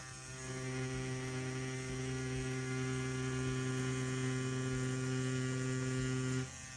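CNC P6 adjustable-stroke rotary tattoo pen running at about 9 volts, a steady even hum. It comes up about half a second in and cuts out briefly near the end.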